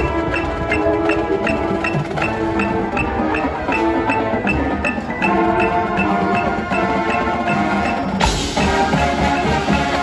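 Marching band playing a halftime show: held chords with mallet percussion, a steady high tick about twice a second, and a cymbal crash a little over eight seconds in.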